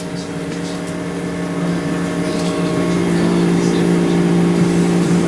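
A steady motor-like hum with a low fixed pitch, growing a little louder about halfway through.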